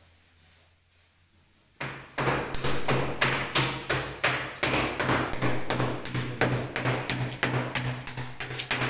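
Rapid hammering, about four to five sharp blows a second, starting abruptly about two seconds in.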